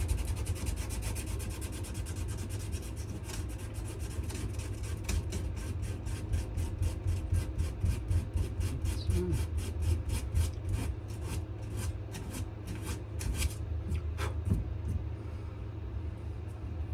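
Abrasive sanding of a wenge and maple knife handle by hand: quick back-and-forth strokes that slow and grow sparser, stopping shortly before the end.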